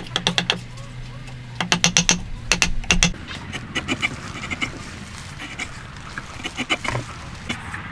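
Hand tool working wood: bursts of rapid scraping strokes, several a second, loudest around the second and third seconds, then fainter.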